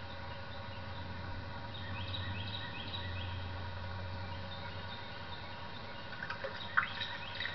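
Creekside ambience: a bird gives a run of short, falling high calls about two to three seconds in, over a steady low hum. A sharp click sounds near the end, followed by a few small ticks.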